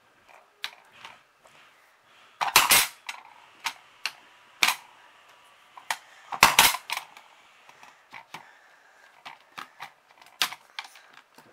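The clear plastic pop-up die dome of a Pop 'n' Hop board game is pressed twice, each press a sharp double plastic snap as the die bounces inside, about two and a half and six and a half seconds in. Lighter plastic clicks and taps come between them as the pawns are moved between the holes in the board.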